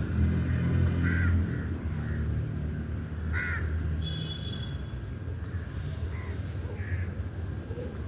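Crows cawing: several separate caws, the loudest about three and a half seconds in, over a steady low rumble. A brief high chirp from another bird comes about halfway through.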